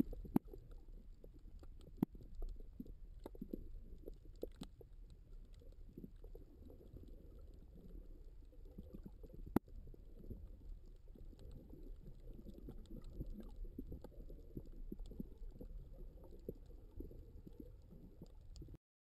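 Underwater sound picked up by a camera in a waterproof housing: a faint, muffled low rumble of moving water with scattered sharp clicks and knocks. It cuts off abruptly just before the end.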